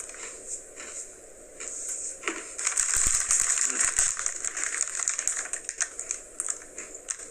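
Someone chewing a crunchy Oreo sandwich cookie close to the microphone: a dense run of crisp crackling clicks that grows louder about two and a half seconds in.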